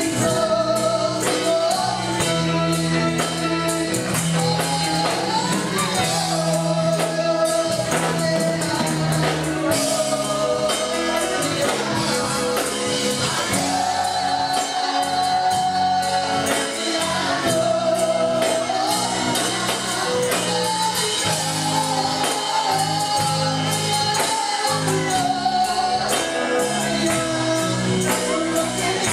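Church worship music: voices singing over a band with a steady, driving percussion beat.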